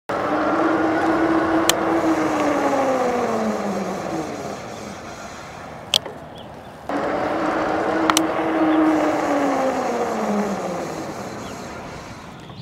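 Electric bike at speed: a steady motor and tyre whine over road noise that slides down in pitch as the bike brakes hard to a stop, heard twice in a row. A few sharp clicks land in between.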